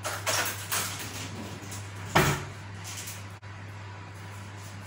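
Kitchen handling sounds at a worktop: a few brief rustles and clatters, then one loud knock about two seconds in, like a cupboard door or an item set down hard, over a low steady hum.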